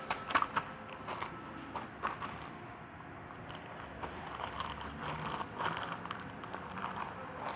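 Slime being pressed and squished by hand, giving irregular clicks and crackles.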